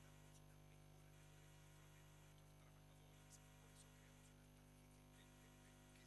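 Near silence: only a faint steady electrical hum.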